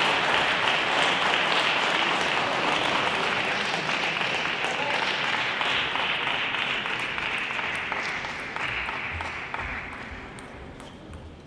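Audience applauding, the clapping slowly dying away over several seconds.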